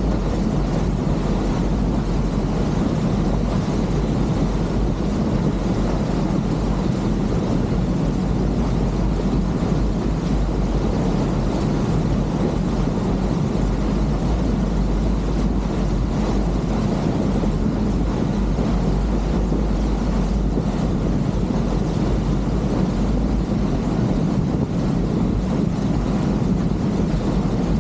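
A boat's engine running steadily under way, a constant low rumble and drone mixed with wind buffeting the microphone and rushing water.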